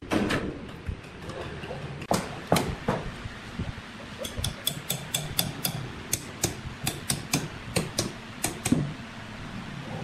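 Sharp knocks and clicks: a few heavier knocks in the first three seconds, then an uneven run of quicker clicks, about three a second, from about four seconds in.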